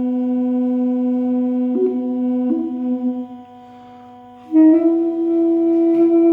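Duduk in key H (B) playing slow, long-held melody notes that step and slide between pitches, over a steady drone on the low B. The melody breaks off for about a second a little past halfway, leaving only the quieter drone, then comes back in on a higher held note.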